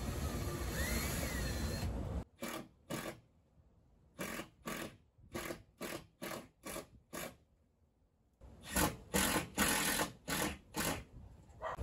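Hand work with a tool at the EG4 6500EX inverter's lower wiring compartment: from about two seconds in, a string of short noisy bursts, about two a second. There is a pause of about a second, then a denser run of bursts near the end.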